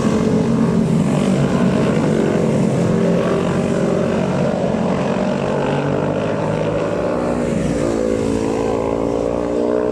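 Racing motorcycles at high revs, several engine notes overlapping in a steady, loud drone, with a new engine note rising in near the end.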